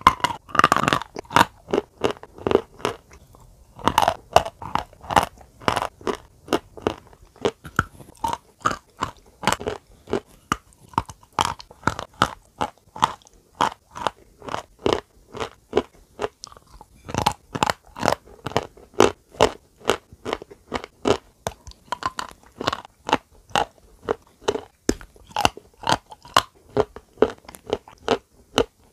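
Close-miked crunching and chewing of a thin, brittle brown sheet of food bitten in pieces: sharp crunches about twice a second, with short pauses about three seconds in and again around sixteen seconds.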